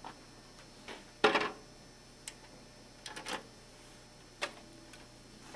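Scattered light clicks and taps of a screwdriver and screws against the sheet-metal frame of an HP LaserJet 4250 printer as the swing plate's three screws are put back in. The sharpest tap comes just over a second in.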